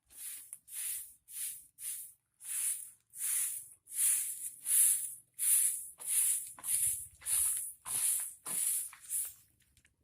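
Broom sweeping with quick, regular strokes, about two a second, each a short hissing swish.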